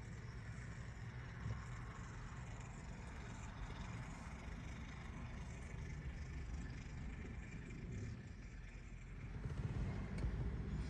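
Engine running with a low rumble under a steady hiss. The rumble grows louder in the last second or so.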